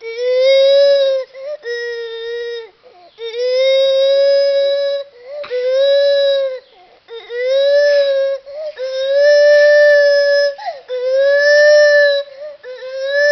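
Gibbon calling: a run of about eight long hoots, each held at one steady pitch for a second or two with a slight rise and fall, one after another with short breaks. The call sounds like a human.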